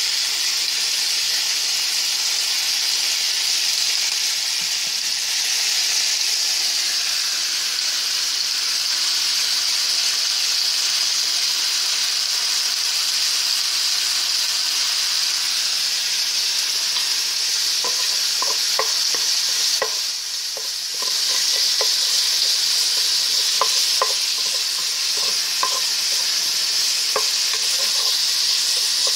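Pork sizzling in a frying pan, a steady hiss throughout. In the second half a run of light taps sounds over the sizzle.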